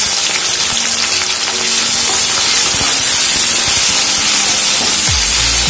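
Chopped onions sizzling in hot oil in a steel kadai, a steady loud frying hiss, with a wooden spatula stirring them.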